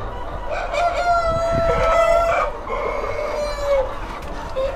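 Roosters in a flock of breeder chickens crowing: one long crow from about half a second in to about two and a half seconds, then another shorter crow around three seconds, over the calls of the flock.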